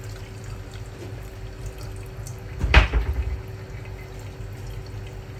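Liquid being poured from a bowl through a small mesh strainer into a metal pot, a thin stream splashing onto the liquid already in the pot. A sudden louder burst a little past the middle of the pour.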